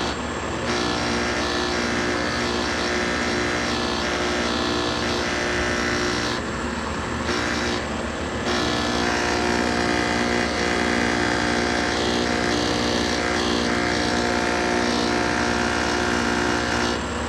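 Air-conditioner compressor running with a loud, steady hum made of many tones, thinning briefly about six seconds in. This is an abnormal noise that the speaker suspects comes from the compressor, possibly starting too early.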